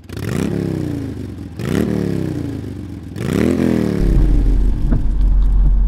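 Engine revved three times, about a second and a half apart, each rev climbing quickly in pitch and then dying away. About two thirds of the way through, a steady low engine hum sets in.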